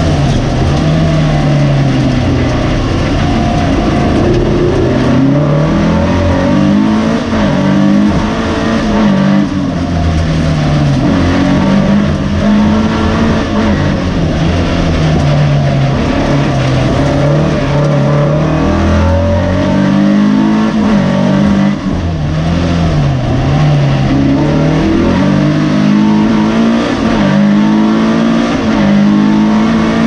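2386cc Volkswagen air-cooled flat-four race engine on twin 48 IDF downdraught Weber carburettors, heard from inside the cabin under hard driving. Its note climbs and drops again and again as the car accelerates between corners and lifts off.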